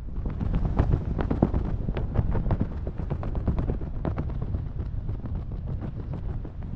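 Wind rushing and buffeting over a helmet camera's microphone from the airflow of a canopy descent: a steady low rumble broken by rapid, irregular crackles.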